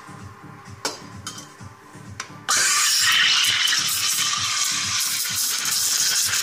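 Espresso machine steam wand opened into a stainless steel pitcher of milk about two and a half seconds in: a sudden loud, steady hiss as the milk is steamed for latte art. A few light clicks come before it.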